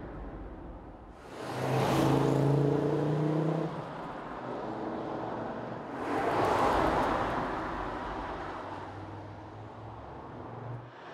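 Audi five-cylinder engine accelerating: a loud surge with a slowly rising note about a second in, a second loud, hissier surge a few seconds later, then a quieter steady engine note that fades.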